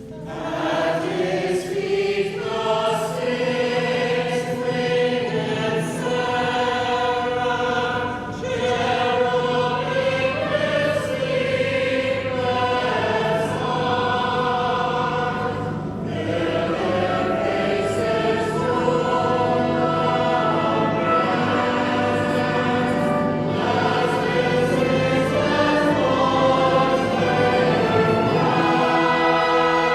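A choir singing a sacred piece over held low accompanying notes.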